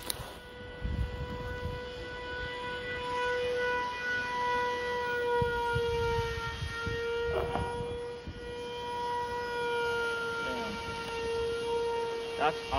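Twin 2205 brushless drone motors and propellers on a foam flying wing, in flight: a steady droning whine whose pitch wavers slightly up and down. Low rumbles of wind on the microphone sit underneath.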